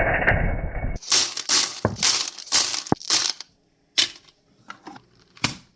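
Loose 9mm cartridges pouring and rattling into a metal ammo can, a dense metallic clatter that breaks up into shorter clinking rustles, then two separate sharp clinks or knocks near the end.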